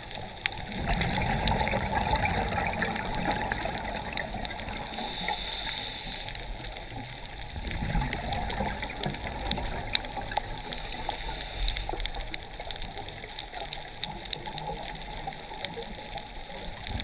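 Scuba diver breathing through a regulator underwater: bubbling exhalations alternating with two short hissing inhalations, over a steady crackle of small clicks.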